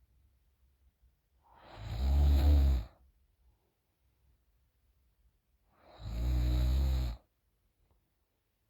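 A woman snoring deeply through an open mouth: two snores about four seconds apart, each lasting a little over a second, with quiet breaths between.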